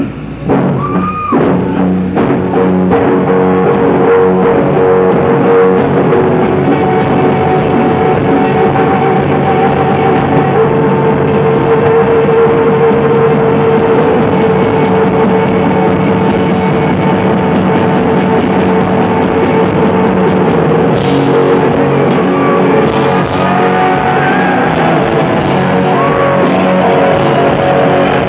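Live blues-rock band playing loudly: electric guitar bending notes over a fast, driving drum beat, with held keyboard and bass notes underneath.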